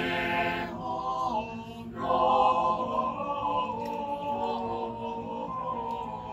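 A choir singing slow, held chords in several voice parts, the chords moving about once a second.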